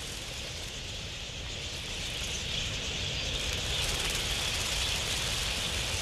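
A large flock of wild budgerigars, their massed chirping merging into a steady hiss that grows slightly louder.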